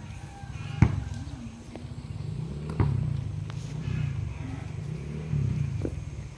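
Sharp knocks of a basketball striking a wooden backboard and rim and bouncing on a hard dirt court, the loudest about a second in, over a low, continuous hum.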